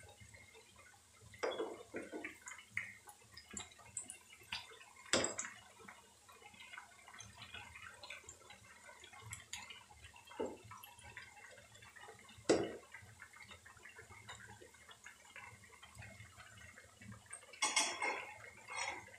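Potato fritters deep-frying in hot oil in a frying pan: a faint sizzle full of scattered crackles and pops. A few louder clicks come as the fritters are turned with a slotted spatula, with a short cluster of them near the end.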